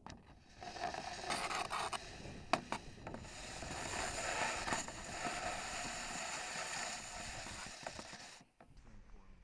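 Handling noise picked up by the camera carried on a model rocket: a gloved hand grips and rubs the rocket body as it is set on the launch rod. It is a steady scraping rustle with a few sharp knocks, and it cuts off suddenly about a second before the end.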